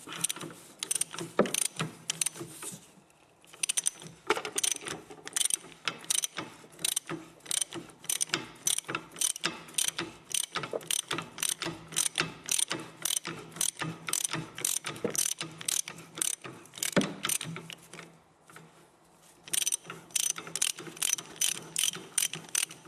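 Socket ratchet wrench with a 13 mm socket clicking steadily as a bracket bolt is wound out, about two to three clicks a second, with two short pauses.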